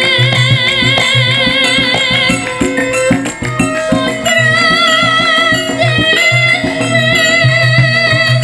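Javanese gamelan playing a langgam, with kendang drum beats and a melody held with a wide vibrato, without a break.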